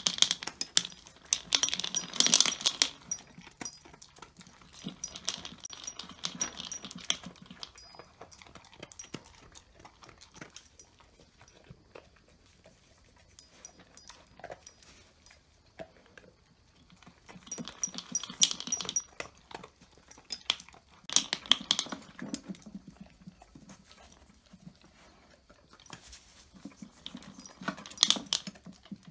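A dog feeding from a Peck-O-Matic demand feeder: its muzzle jostles the red plastic cup, dry feed rattles and clicks in the cup, and the dog crunches it. This comes in loud bursts of a second or two, with quieter clicking and chewing between.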